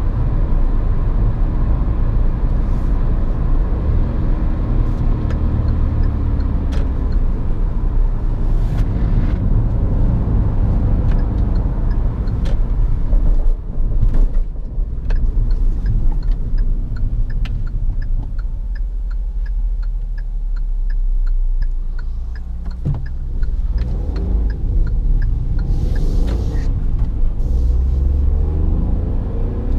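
Cabin noise inside a 2020 Hyundai i10 on the move: the 1.0-litre three-cylinder engine's drone over tyre and road rumble. The engine eases off about two-thirds of the way through, then rises in pitch again near the end as the car accelerates. A light, regular ticking about twice a second runs through the middle.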